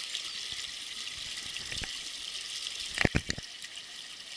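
Shallow mountain stream rushing over stones: a steady hiss of flowing water. A quick cluster of sharp clicks comes about three seconds in.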